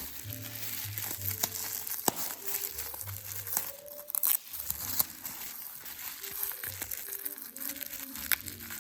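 Crinkling and rustling of packing material as a wrapped watch is handled and unwrapped, with scattered small crackles.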